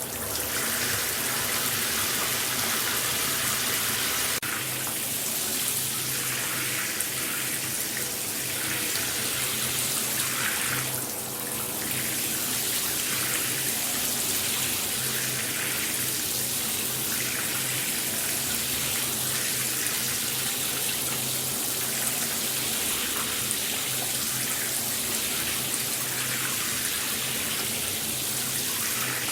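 Shower spray running steadily, a continuous hiss of water falling and splashing, with a brief dip about eleven seconds in.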